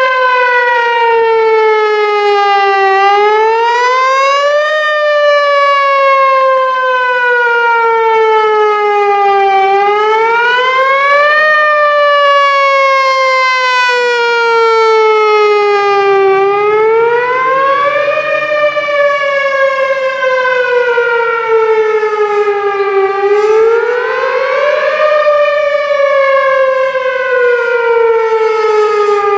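Whelen Vortex R4 outdoor warning siren sounding a wail: a loud pitched tone that rises over about two seconds and falls slowly over about five, four times over. This is the wail part of a weekly tornado siren test.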